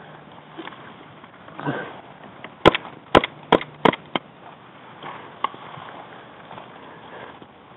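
Five sharp cracks of close airsoft fire within about a second and a half, with softer rustling of clothing and leaves before and after.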